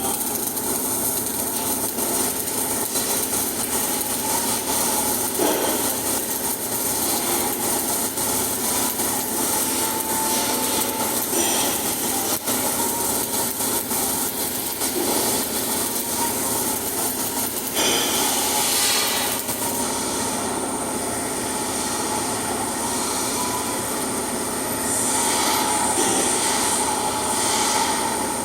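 Flux-cored arc welding: the arc crackling and sizzling steadily, with a thin high tone running through it.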